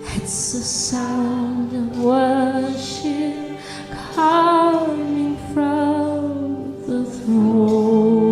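Slow worship music: a woman singing long held notes with vibrato over sustained accompaniment chords.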